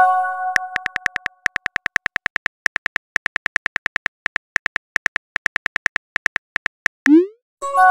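Simulated phone keyboard typing sounds: a fast, even run of short clicks as a text message is typed out. A chime of several tones rings in the first second and a half, and near the end a short rising whoosh of the message being sent is followed by another chime.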